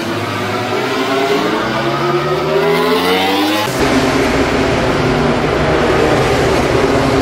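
MotoGP race bikes accelerating at full throttle, engine pitch climbing steadily. A little under four seconds in, the sound changes abruptly to a denser, deeper, noisier engine sound as the bikes pass close by.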